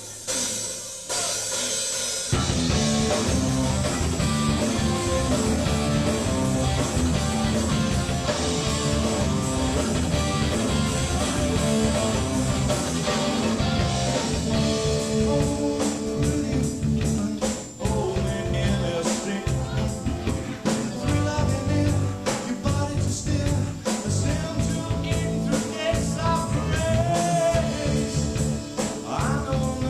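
Rock band playing a song with singing, kicking in at full volume about two seconds in.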